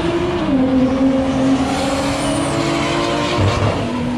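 Car engine held at high revs, its pitch dropping a little about half a second in and again near the end, over a steady rushing noise.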